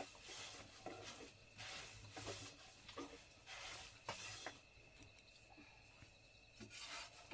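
Faint, scattered small taps and rustles over a low background hiss.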